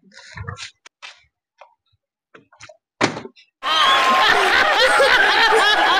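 Light knocks and clicks of a plastic water bottle set down and spun on a concrete ledge. About three and a half seconds in, a loud burst of a man laughing heartily over a laughing, clapping audience cuts in.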